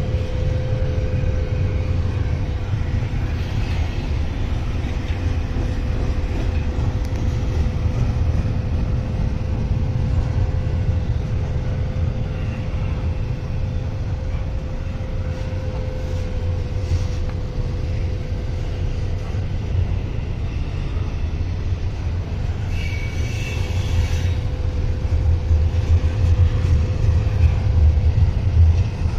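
Intermodal freight train climbing a mountain grade: a steady low rumble with a steady hum throughout, and a brief high squeal about three-quarters of the way through.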